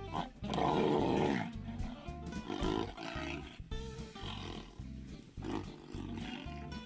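Background music with a steady beat, with a loud animal roar about half a second in that lasts about a second, then a few shorter, quieter growls.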